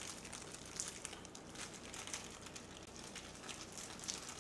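Faint crinkling and light ticks of disposable plastic gloves handling kimbap fillings as they are laid on rice and seaweed.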